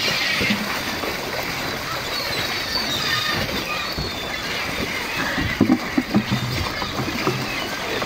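Water splashing and churning as sea lions thrash and jostle at the surface, scrambling for fish scraps. A few loud, short, low sounds come a little past the middle.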